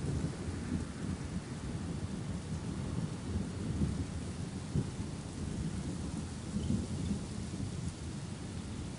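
Thunder rumbling low and long, swelling and fading, over the steady hiss of falling rain.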